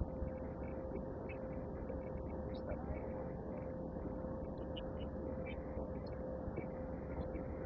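Aircraft cabin noise: a steady low drone with a constant hum tone and a few faint ticks.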